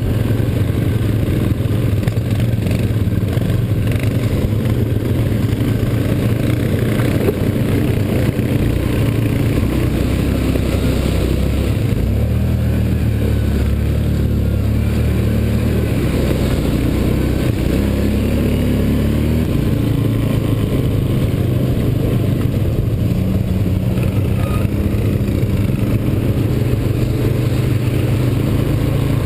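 ATV (quad bike) engine heard close up from the riding machine, running under way with its pitch rising and falling in steps as the throttle changes.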